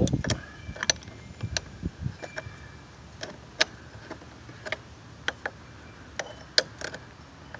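Ratchet wrench clicking as it loosens the nut on a car's negative battery terminal clamp: sharp, irregular clicks, about two a second.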